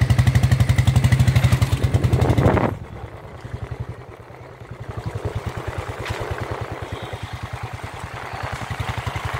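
Motorcycle engine running with an even, rapid putt. It is loud for the first few seconds, then drops suddenly to a quieter, steady run.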